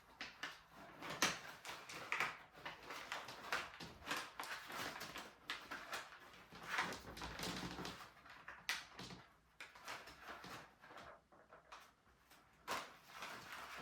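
Irregular rustling, clicks and knocks of packing material being handled and pulled off a new bicycle by hand.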